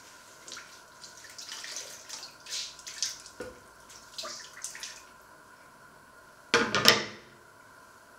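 Dishes being washed by hand in a stainless-steel kitchen sink: a run of water splashes and scrubbing, then a short, loud clatter about six and a half seconds in as something hard is put down.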